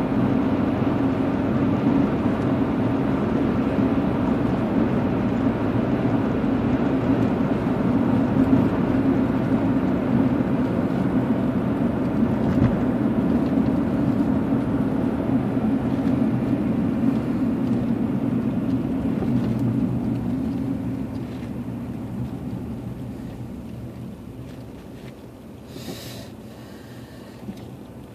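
Road and tyre noise of a moving car heard from inside the cabin, a steady rumble that dies away over the last several seconds as the car slows to a stop in traffic.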